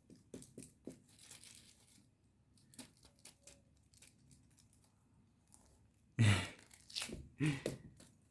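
Cats scratching and rustling at their play: light scattered scratches and crinkling, with a few louder scuffs near the end.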